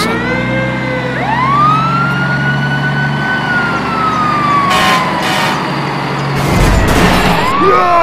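Fire truck siren wailing: the pitch rises about a second in, holds, then slowly falls, and rises again near the end, over a steady low hum.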